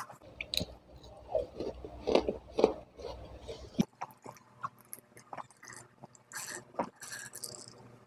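Close-miked eating sounds: chewing and smacking while licking fingers. About four seconds in comes a cut, then gulps and swallows from a glass jar of drink, with breathy sounds between.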